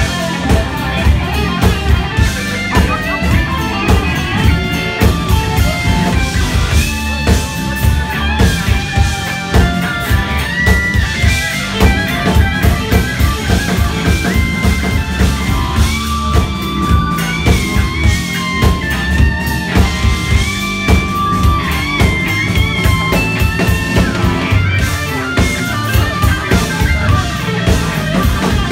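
Live blues-rock band: an electric guitar plays a lead line of long held and sliding single notes over a steady drum-kit beat.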